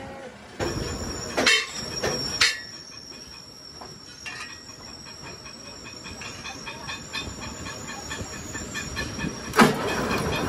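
Metal lathe in a workshop running with a thin, steady high whine, while a steel truck wheel rim plate is handled and clamped in its chuck: several sharp metallic clanks in the first couple of seconds, a rapid regular ticking in the middle, and a loud metallic bang near the end, after which the plate spins in the lathe.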